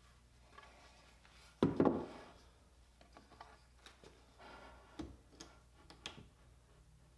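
A solid knock about two seconds in, then a string of light taps and clicks from wooden parts being handled on a workbench.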